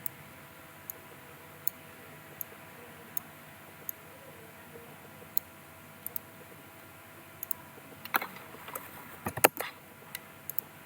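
Computer mouse clicks: a run of single clicks evenly spaced under a second apart, then a few quick double clicks, and a louder cluster of clicks and knocks near the end.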